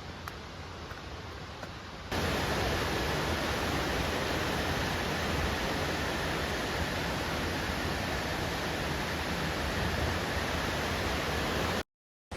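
Steady rush of a small waterfall's falling water, cutting in suddenly about two seconds in over quieter background noise and cut off abruptly near the end.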